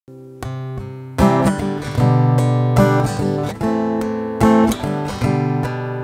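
Acoustic guitar playing a song's introduction: a few quiet notes, then fuller, louder chords from about a second in.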